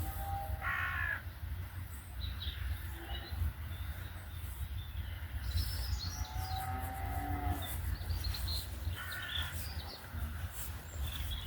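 Rural outdoor ambience: a crow caws twice, about a second in and again about nine seconds in, while small birds chirp throughout, over a steady low rumble. A longer drawn-out call sounds around the middle.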